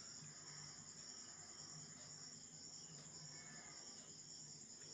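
Near silence, with faint, steady, high-pitched insect chirring in the background.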